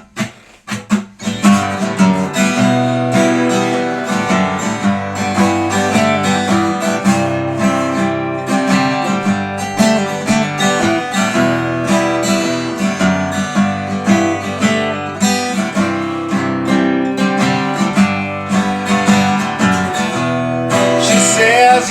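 Acoustic guitar strumming chords as a song's introduction, starting about a second in.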